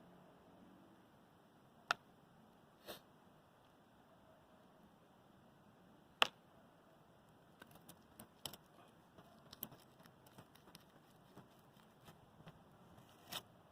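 Scattered light clicks and taps, two sharper ones about two and six seconds in, then a quick run of small ones in the second half: the cooled lump of melted aluminium and its crumbling crust being handled.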